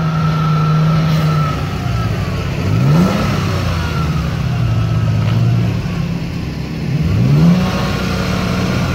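Toyota FJ Cruiser's V6 engine working hard in deep mud. It runs at steady revs and climbs in pitch twice, about three and seven seconds in, as the driver gives it more throttle. The wheels are slipping in the rut for lack of tread.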